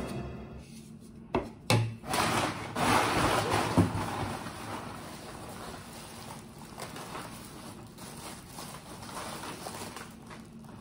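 Cardboard box and plastic packaging rustling and crinkling as parts are handled, with a few sharp knocks in the first two seconds as the intake tube goes down on the table. The rustling is loudest in the first few seconds and fainter after that.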